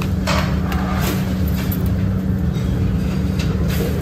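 Steady mechanical drone with a constant low hum, with a few light clicks in the first couple of seconds.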